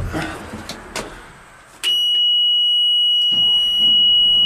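Handling clicks and rustling, then the cab warning buzzer of a Stewart & Stevenson M1078 LMTV army truck comes on suddenly about two seconds in: one loud, steady, high-pitched tone that holds, with a low rumbling noise joining beneath it about a second later, as the truck is being switched on to start.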